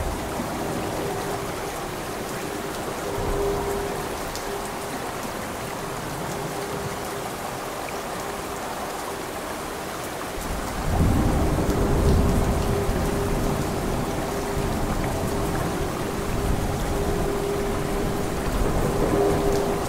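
Steady rain with rolling thunder. A faint low rumble comes a few seconds in, and a louder rumble swells up about halfway through and rolls on for several seconds.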